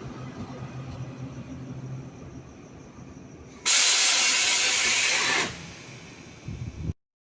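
Electric train standing at a platform, running with a low rumble and a steady hum, then a loud blast of compressed air hissing for under two seconds, typical of a train's air brake or air system venting. The sound then cuts off suddenly.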